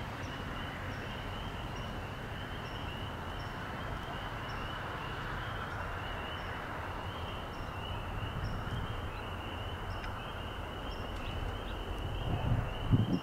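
Outdoor ambience: a continuous high-pitched chorus of chirping calls with short regular pips above it, over a steady low rumble. Near the end come a few louder low buffets of wind on the microphone.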